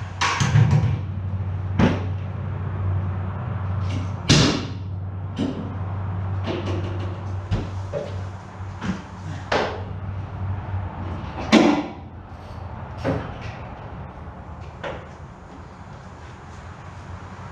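Scattered knocks and clinks of hand tools and metal parts being handled while working on an outboard engine, over a low steady hum that fades out about ten seconds in.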